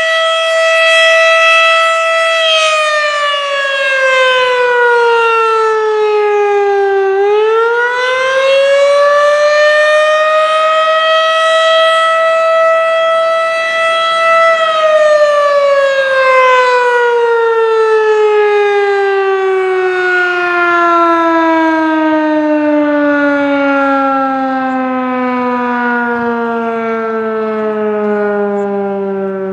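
Federal Signal Model 3 electromechanical tornado siren sounding the attack signal, loud. Its single wailing tone holds steady, slides down in pitch, climbs back up over a few seconds and holds again. About halfway through it begins a long, slow fall to a much lower pitch.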